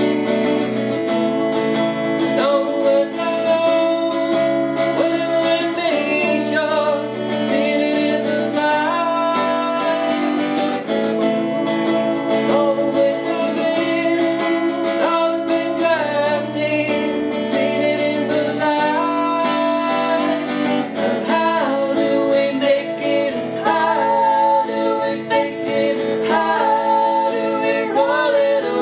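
Strummed acoustic guitar accompanying two men singing a song, played without a break.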